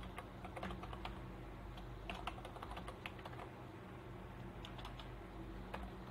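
Typing on a computer keyboard: light key clicks in a few short runs.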